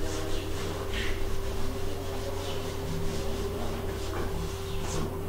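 Faint rubbing strokes of a duster wiping a chalk blackboard, a few brief scrapes over a steady low hum.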